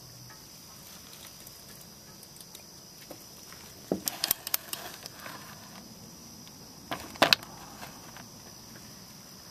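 Click-type torque wrench on a wheel lug nut giving sharp metallic clicks in two short clusters, about four seconds in and again about seven seconds in. The click is the wrench breaking over at its set torque of 80 foot-pounds, the sign that the nut is properly tightened.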